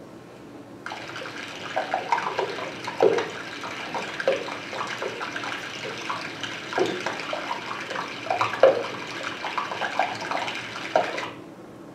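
Hydrophone recording of floating glacier ice melting underwater: a steady fizzing hiss crowded with short crackles and pops, the air trapped in the ice being released as it melts. It starts about a second in and cuts off shortly before the end.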